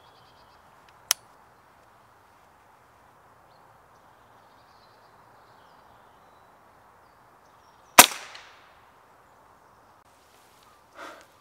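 A single shot from a Walther RM8 pre-charged pneumatic air rifle about eight seconds in: one sharp crack with a short fading tail. A fainter sharp click comes about a second in.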